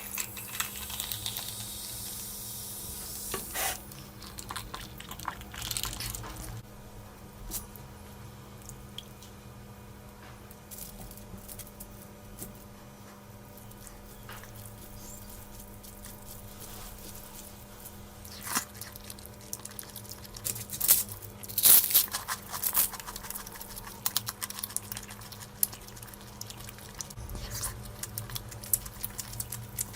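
Close-miked eating of curry and rice: wet squishing, smacking and chewing, with scattered sharp clicks, loudest a little past the middle.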